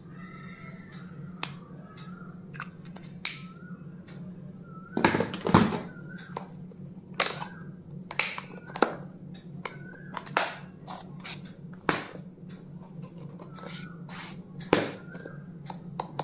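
Irregular sharp clicks and taps of small objects being handled, the loudest cluster about five seconds in, over a steady low hum. Short high squeaky chirps come and go between the clicks.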